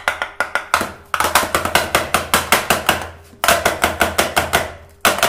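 Square aluminium cake tin full of brownie batter rapped rapidly on a stone countertop, about five knocks a second in runs broken by short pauses, to settle and spread the thick batter evenly in the tin.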